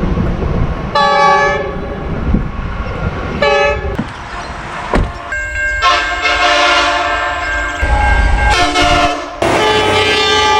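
Diesel freight locomotive horns: two short blasts about two seconds apart, then, after abrupt cuts, longer chord-like horn blasts of changing pitch over a low engine and rail rumble.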